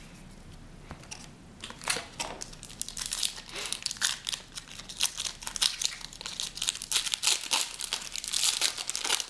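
Foil wrapper of a hockey trading-card pack crinkling and tearing as it is pulled open by hand: a dense run of sharp crackles that starts about two seconds in and stops near the end.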